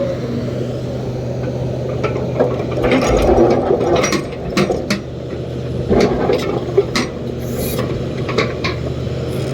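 Excavator working at a truck: its diesel engine runs steadily beneath a string of clanks, knocks and rattling, busiest about three seconds in and again around six seconds.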